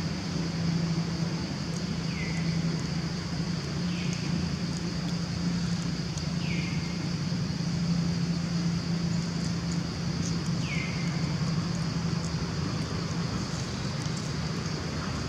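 Outdoor ambience: a steady low hum, like a running engine, under a steady high-pitched drone, with four short falling chirps a few seconds apart.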